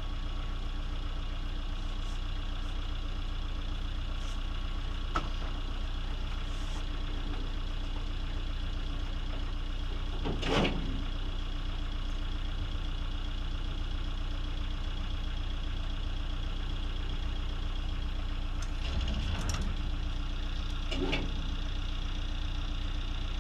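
Motor boat's engine idling steadily. A few short knocks and clatters break in, the loudest about ten seconds in and a cluster near the end.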